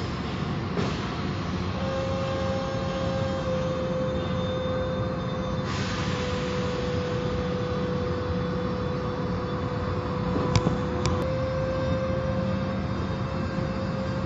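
Car wash machinery running: a steady mechanical hum with a constant whine, and two short sharp clicks about ten and a half and eleven seconds in.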